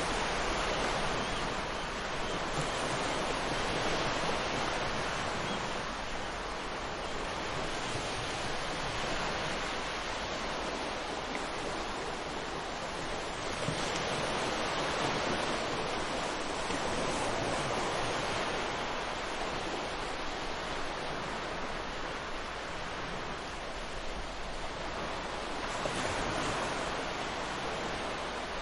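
Ocean surf: a steady wash of waves on a shore, swelling and easing every few seconds.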